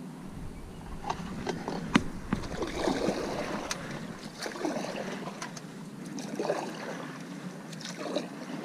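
Stand-up paddleboard paddle strokes: the blade dipping and pulling through calm water, with splashes and drips every second or two, and a sharp knock about two seconds in.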